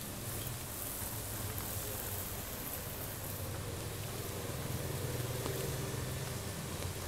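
Rainy street ambience: a steady hiss with the low hum of a motor vehicle's engine, swelling slightly about five seconds in.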